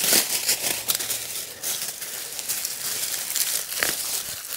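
Dry leaves and forest debris rustling and crackling as they are handled and pushed aside, with the sharpest crackles in the first second.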